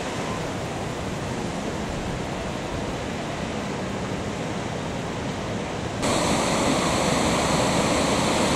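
Water rushing through a dam's open spillway gates, a steady rushing noise. About six seconds in it becomes louder and brighter as the outflow is heard close up.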